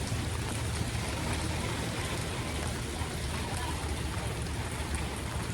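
Steady rush of floodwater running over the street and into a drain, with a low rumble underneath.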